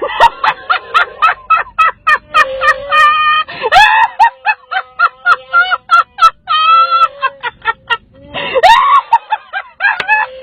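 A woman laughing hysterically in rapid, high-pitched bursts, mixed with the Wookiee roars of an electronic Chewbacca mask that are set off by her mouth moving.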